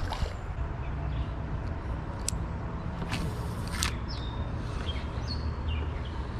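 Steady rush of flowing river water, with a few sharp clicks around the middle. A bird gives short, high, falling chirps several times in the second half.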